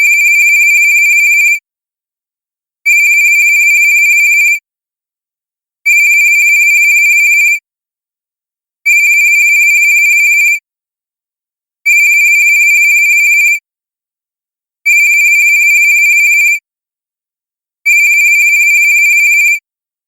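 Cartoon-style cell phone ringtone: a high, steady electronic ring about a second and a half long, repeating every three seconds, seven times.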